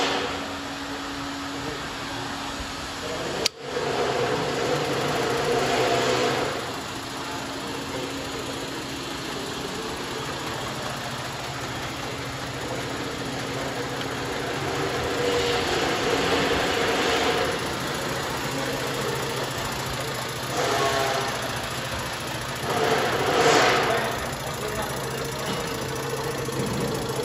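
Stainless-steel tabletop conveyor running: a steady hum from its DC gearmotor under an even rattle of the tabletop chain belt, with a few louder swells along the way.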